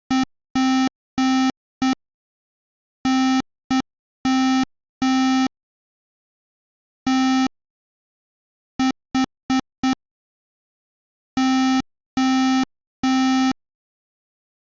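Morse code tone from a CircuitPlayground Bluefruit USB Morse code key, tapped in live: one steady buzzy beep keyed on and off in short dots and long dashes. The groups read P, Y, T, H, O, the start of "PYTHON".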